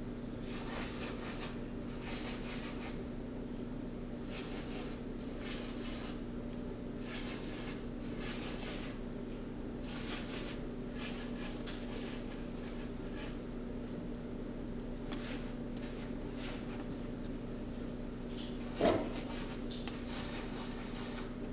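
Paintbrush dabbing and rubbing paint onto cardboard in repeated short scratchy strokes, over a steady low hum. One brief, louder sound near the end.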